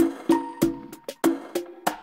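Background music with a quick percussive beat, about three hits a second, over short pitched notes.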